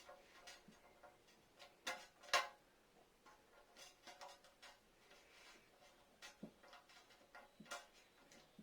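Faint, scattered small clicks and taps of plastic Play-Doh dentist toy parts and tools being handled while modelling-clay teeth are made. Two louder clicks come close together about two seconds in.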